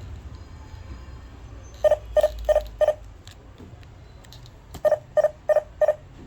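Wireless burglar alarm control panel beeping its entry-delay warning: two sets of four quick beeps at one mid pitch, about three seconds apart. The warning is set off by the motion sensor and counts down the seconds left to disarm before the alarm sounds.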